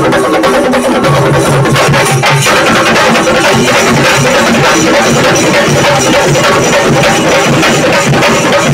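A group of chendas, Kerala's cylindrical drums struck with curved sticks, played together in a loud, dense, fast rhythm.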